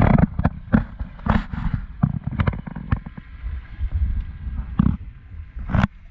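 Irregular knocks and thumps against a small fishing boat's deck and hull, over a steady low rumble. The loudest knocks come at the start and again near the end.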